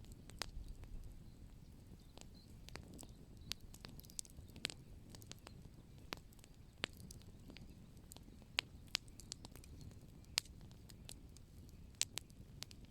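Wood fire crackling: irregular sharp pops and snaps, a few of them louder, over a low steady rumble of the burning.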